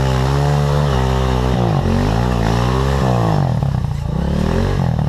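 Trail motorcycle engine running at a standstill and being revved up and down repeatedly, its pitch rising and falling.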